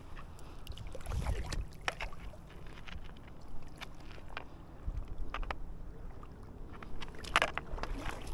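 River water sloshing and splashing close by, with scattered small knocks and a low wind rumble on the microphone; the loudest knock comes near the end.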